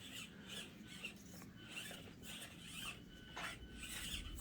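Faint irregular scratching and rubbing with a faint steady high whine: an Axial SCX24 micro crawler's small electric drivetrain working and its tires scrabbling over the course terrain.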